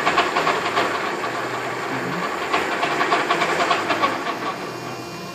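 Rebuilt centerless grinder running in reverse: a hissing, rapid clatter that eases off near the end.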